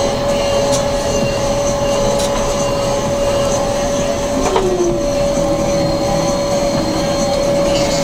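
Combine harvester running while cutting cereal, heard from inside the cab: a steady machine hum from the engine and threshing gear with a constant high whine on top.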